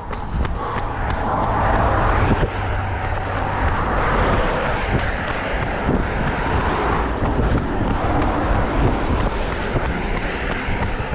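Road traffic passing close by: a steady low rumble of engines and tyre hiss that swells and fades every few seconds.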